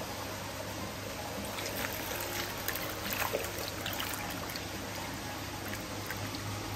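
Water trickling and splashing over a low steady hum, with a patter of small splashes about two to four seconds in.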